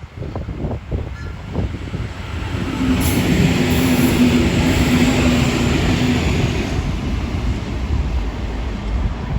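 A train passing close by on the track: it grows loud about two and a half seconds in and stays loud, a rush of wheel and rail noise with a steady hum over it.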